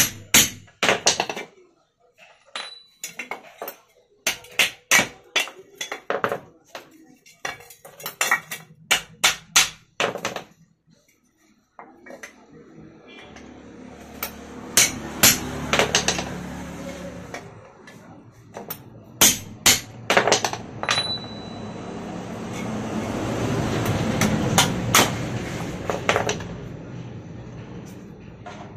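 Hammer blows on a steel shaft used as a punch in a cooler fan motor's housing, driving out the aluminium rivets that hold the worn bush: a quick run of sharp metal strikes for about the first ten seconds, and a few more later. From about twelve seconds in, a steady low noise swells and fades under them.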